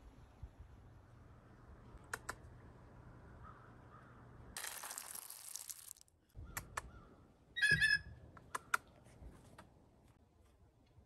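Sunflower seeds poured from a glass jar into a metal lid, a rattling rush lasting about a second and a half, then a few sharp clicks and one short, harsh blue jay call about eight seconds in.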